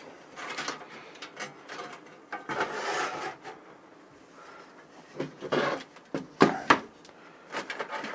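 Handling noise as a PC power supply and its braided cables are slid into a steel case's power-supply bay: scraping and rubbing of cables and the metal housing against sheet metal, with a few sharp knocks a little past the middle.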